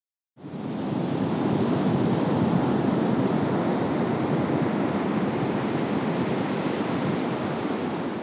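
Ocean surf washing ashore: a steady rush of waves that fades in after a short silence, swells a little a couple of seconds in, then eases.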